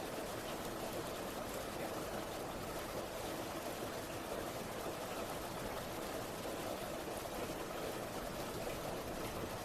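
Heavy rain falling steadily, a constant even hiss of water.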